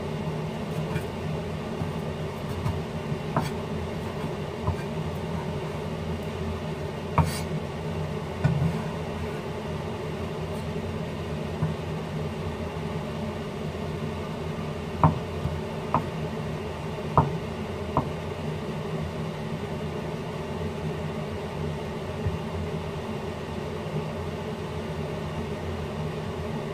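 Cleaver blade knocking on a wooden chopping board as chillies and a block of tempeh are cut: scattered single knocks, four in quick succession about halfway through, over a steady low hum.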